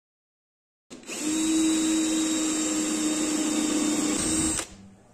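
Cordless drill running at a steady speed, its countersink bit cutting a countersunk hole into a hardwood block. It starts about a second in and stops abruptly near the end.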